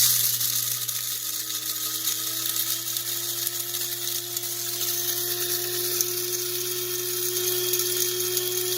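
Kaffe KF2020 electric coffee grinder switched on and run continuously, grinding whole espresso beans. It starts abruptly with a motor whine that rises slightly in pitch as it gets up to speed, then holds steady.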